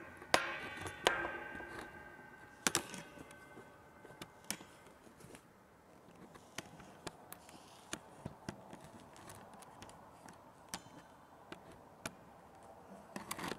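Handling noise from a camera being set up: sharp clicks and knocks, the loudest few in the first three seconds each ringing briefly, then fainter scattered clicks.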